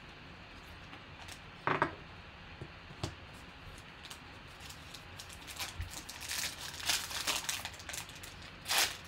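Foil-wrapped trading card pack crinkling and being torn open by hand, with a run of quick crackles from about five seconds in, loudest near the end. A brief sound stands out about two seconds in.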